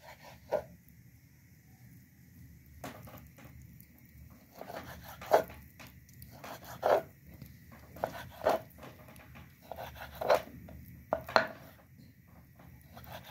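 Kitchen knife cutting raw fish into small cubes on a wooden cutting board, the blade knocking against the board with a sharp knock every second or two.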